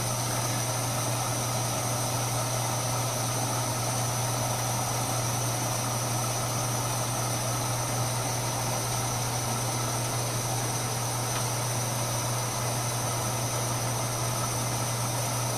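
MSR Whisperlite International liquid-fuel stove burning white gas at medium heat, giving a steady, unbroken burner roar.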